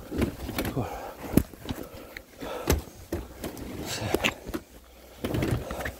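Footsteps on a concrete floor and the handling of white fabric carry bags: irregular rustling with scattered knocks, the sharpest about a second and a half in.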